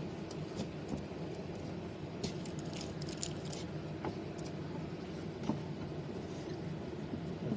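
Faint handling noises, a scatter of small clicks and light rattles, over a steady low room hum.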